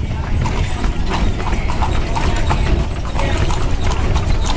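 Horse hooves clip-clopping on a paved street, over a steady low rumble.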